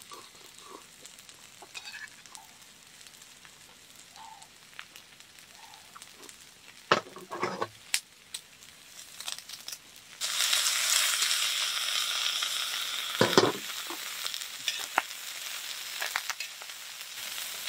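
A few quiet clinks and knocks of tongs and tableware, then about ten seconds in, fresh minari (water dropwort) lands on a hot grill pan of beef small intestines and starts sizzling loudly and steadily. There is a louder clatter a few seconds later.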